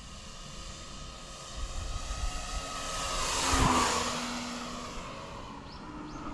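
Seagull Cessna 208 Grand Caravan model airplane's motor and propeller on a low flyby, growing louder as it approaches, loudest just before four seconds in, then fading as it passes and climbs away.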